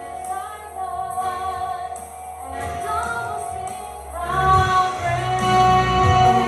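Church worship music with singing over long held notes; a low bass comes in about four seconds in and the music gets louder.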